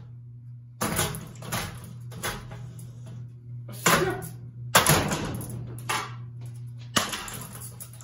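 Spinning ceiling fan blades striking a long tube pushed up into them: a series of sharp hits at irregular intervals over a steady hum.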